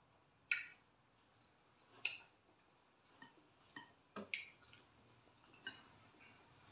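Wet eating sounds of fufu and soup being eaten by hand: about six short, sharp smacks and clicks of mouth and food, the loudest about half a second and two seconds in, with a quick cluster around four seconds.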